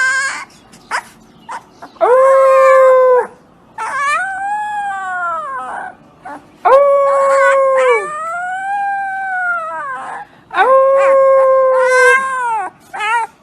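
Dog howling in a series of long drawn-out howls, some held level and then dropping in pitch at the end, others rising and falling, with short pauses between them.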